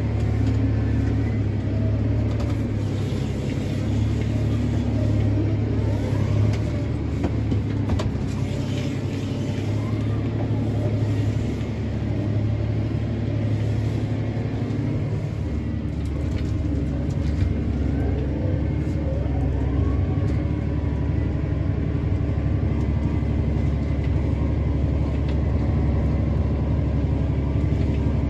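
Tractor engine running steadily under load while pulling a speed disc, with a continuous low rumble and a few faint squeals from the machinery.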